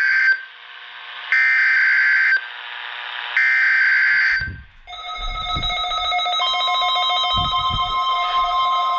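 NOAA Weather Radio SAME header for a Required Weekly Test: harsh one-second bursts of digital data tones, the tail of one at the start and then two more about a second apart, with faint radio hiss between them. About five seconds in, music starts: sustained chords over low bass notes.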